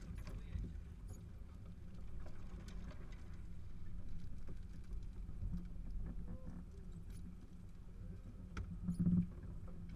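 Off-road vehicle heard from inside the cabin while driving slowly over a rough forest track: a steady low engine rumble with scattered clicks and knocks from the body, and a louder thump about nine seconds in.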